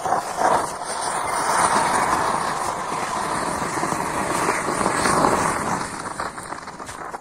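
Anar (flower pot firework) burning: a loud, steady rushing hiss of its spark fountain, which fades away over the last second or so.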